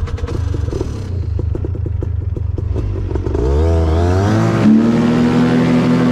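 Paramotor trike engine and propeller idling with a clattery ticking, then throttled up about three seconds in: the pitch climbs for over a second and settles into a louder, steady full-power note near the end as the trike starts its takeoff run.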